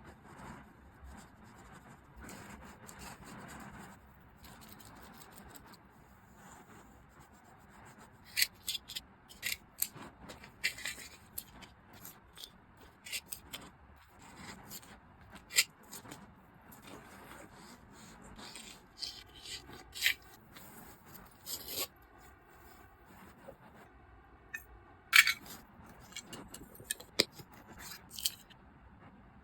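Hands packing an order: faint rubbing and rustling of wrapping material, then, from about eight seconds in, a run of sharp clicks, taps and scrapes as items and packaging are handled.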